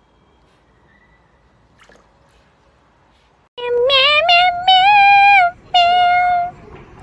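A high-pitched sung voice comes in about three and a half seconds in, after faint background hiss: three short phrases, each a note that slides up and then holds steady.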